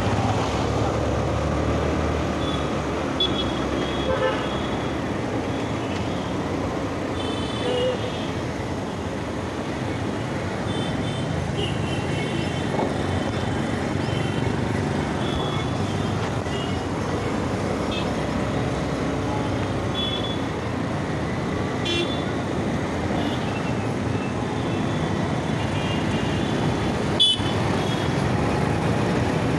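Steady road and traffic noise heard from a moving scooter in dense city traffic, with short horn toots from surrounding motorbikes and vehicles every few seconds. A single sharp click sounds near the end.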